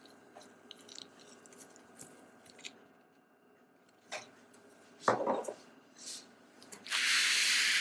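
Small screwdriver turning the M.2 SSD's retaining screw into a laptop motherboard, with faint scattered ticks and clicks, then a click and a louder knock. Near the end comes a steady hiss lasting about a second, the loudest sound.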